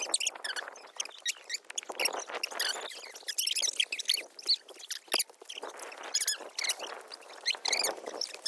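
Many small birds chirping in a dense, fast run of short high-pitched calls.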